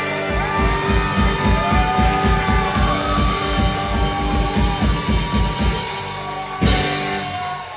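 Live rock band with electric guitar and drum kit: held guitar chords with bending notes over a run of drum strokes, about four a second, then one big hit near the end.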